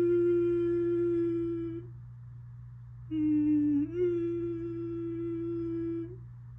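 Federal Signal Modulator II voice siren's loudspeaker sounding steady alert tones ahead of the voice message. One tone fades out about two seconds in; a second starts lower, steps up in pitch about a second later and holds for about three seconds.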